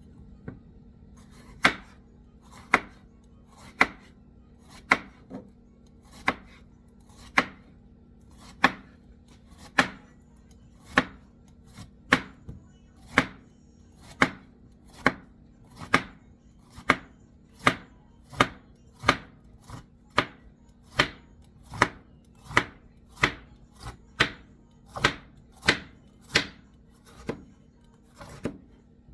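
A knife cutting a bitter melon into round slices: about thirty single chops, roughly one a second.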